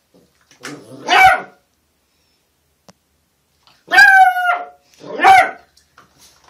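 A puppy barking: three short, high-pitched barks, one about a second in and two close together around four to five seconds in.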